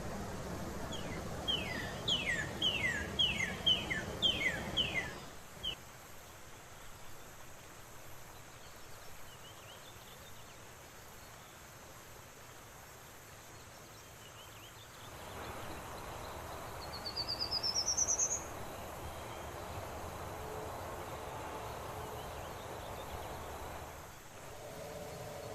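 Songbirds singing over a steady outdoor hiss. First comes a quick series of about eight down-slurred whistled notes, then about two-thirds of the way through a short buzzy trill rising in pitch.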